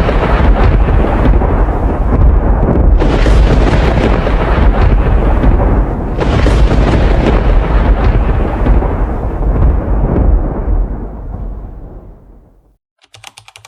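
Loud rolling thunder: three heavy claps, at the start, about three seconds in and about six seconds in, each rumbling on, the last dying away about twelve seconds in.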